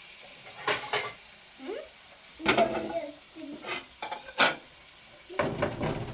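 A metal utensil scraping and knocking against a cooking pot in irregular strokes while food is being stirred, with a sharp clink about four and a half seconds in and a quick run of scrapes near the end.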